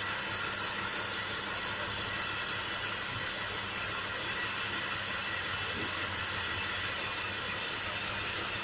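Car engine idling steadily with the airbox removed and the airflow sensor open to the air, a steady high hiss of induction air over the engine's hum.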